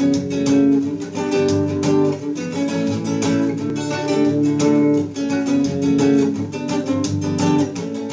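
Instrumental song intro led by a strummed acoustic guitar, playing in a steady rhythm.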